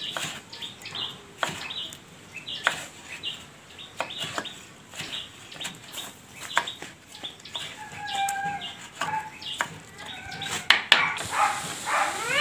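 Kitchen knife chopping a carrot on a wooden cutting board, a sharp tap with each cut, while a chicken clucks in the background with a longer call about eight seconds in.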